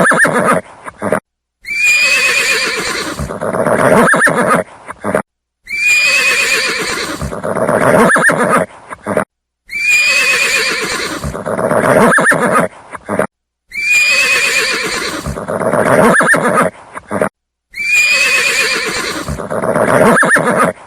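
A horse whinnying, the same neigh looped about five times, roughly every four seconds. Each is a high, quavering call that drops lower before breaking off into a brief silence.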